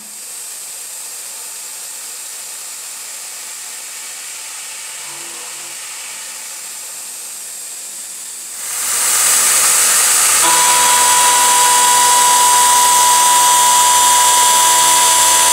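CNC milling machine cutting a cast-iron brake rotor with an end mill. A steady hiss runs for about eight seconds, then the cut gets much louder, and a high steady whine joins about ten seconds in.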